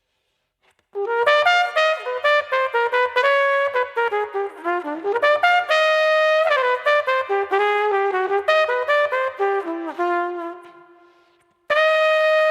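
Unaccompanied saxophone playing a jazz melody, one note at a time: it starts about a second in with a run of quick notes and some held ones, fades out near the end, and a new phrase opens with a held note just before the end.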